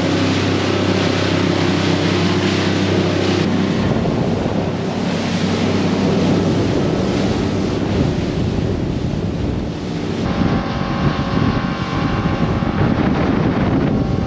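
Boat running at speed on its 250-horsepower outboard: a steady engine hum under wind rushing over the microphone and the hiss of water off the hull and wake. The sound changes abruptly about three and a half seconds in, when wind and water take over from the hum, and again about ten seconds in.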